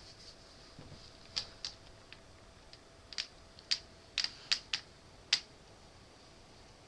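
A run of about nine sharp, light clicks at uneven intervals, several close together in the middle, like small hard objects tapping or keys being pressed.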